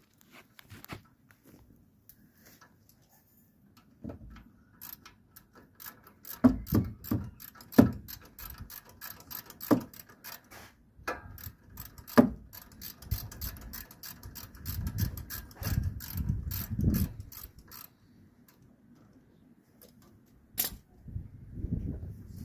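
Socket ratchet clicking in quick runs as a 13 mm rear brake caliper bolt is turned, with a few louder knocks of the tool against the caliper.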